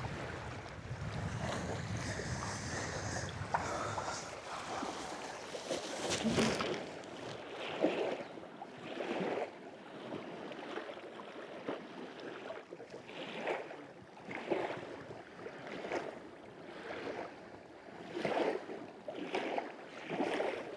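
Small lake waves lapping against the shore in soft washes about once a second, with wind buffeting the microphone for the first six seconds.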